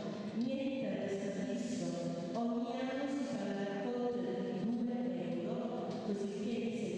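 Chant-like vocal music: voices singing slow, held notes that change pitch about once a second.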